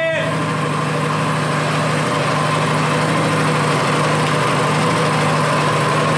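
Coleman CT200U mini bike's small single-cylinder four-stroke engine idling steadily.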